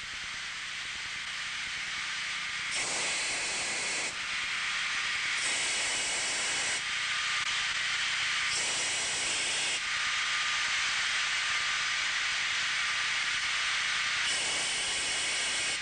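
VacuBlast abrasive blasting machine hissing steadily as its nozzle blasts corrosion out of pits in aircraft skin. It swells into a louder rush four times, each about a second and a half long. A thin steady whistle joins about two-thirds of the way through.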